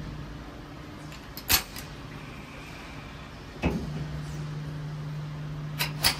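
Softgel drying tumble dryer running with a steady low motor hum that fades about a second in and comes back strongly just before four seconds. Sharp clicks come about a second and a half in, just before four seconds, and near the end.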